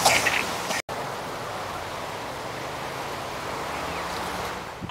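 Steady rushing seaside noise of wind and ocean surf, after the sound drops out for an instant about a second in.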